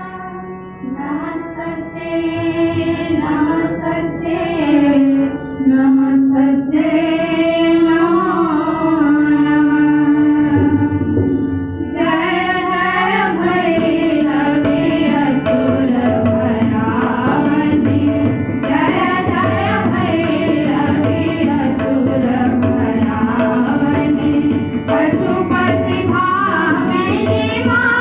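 A group of girls sings a song together, accompanied by a harmonium and a tabla. The voices come in about a second in over a held harmonium chord, and the music grows fuller from about halfway.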